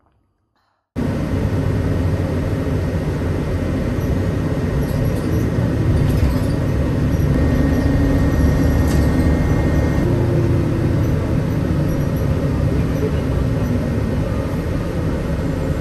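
Steady low rumble of a city bus's engine and road noise heard from inside the moving bus, cutting in suddenly about a second in.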